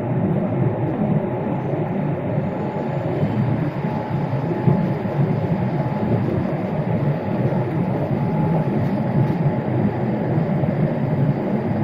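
A Boeing 787-8's GEnx-1B turbofan engines at takeoff thrust, heard from inside the cabin over the wing: a steady, loud low rumble with a faint steady whine on top, through the end of the takeoff roll, liftoff and the first seconds of climb.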